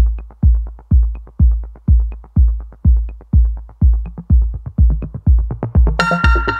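Electronic dance music with a steady, heavy kick drum about two beats a second and a light high tick on every other beat. A sustained synth chord comes in near the end.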